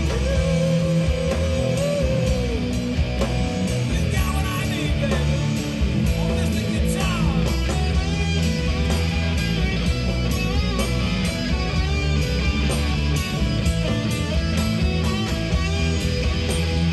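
Rock band playing with electric guitar, bass guitar and drums, over a steady beat.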